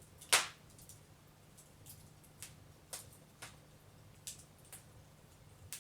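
Wood fire burning in a fireplace, crackling with irregular sharp pops, the loudest about a third of a second in.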